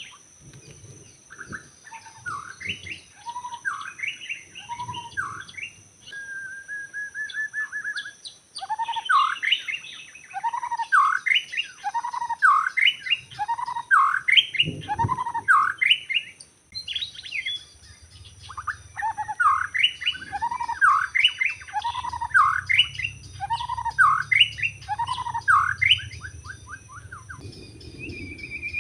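White-rumped shama (murai batu) singing: repeated phrases of loud, sharply rising whistled notes, with a short steady trill a quarter of the way in and a brief pause about halfway. A thin steady high-pitched whine runs underneath.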